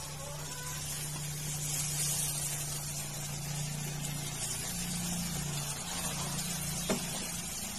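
A thick mixture sizzling and hissing steadily in a steel pot on the stove as it is stirred with a wooden spatula, over a steady low hum. A single sharp tap sounds near the end.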